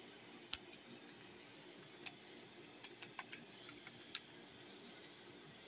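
A few faint, irregular light clicks and ticks over a low steady hum.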